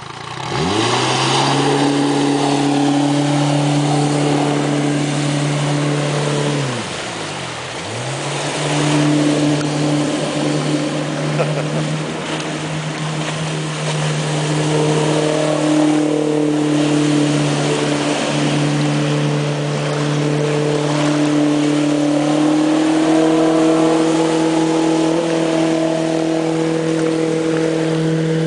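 A 40 hp Mercury outboard motor revs up quickly from idle and runs hard, pushing an inflatable boat at speed. About seven seconds in the revs drop sharply and climb straight back, then it holds steady high revs with a rushing noise over it.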